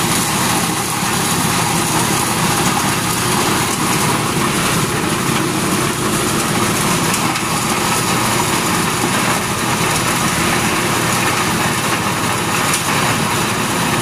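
Corn sheller machine running steadily: a loud, even, continuous engine drone.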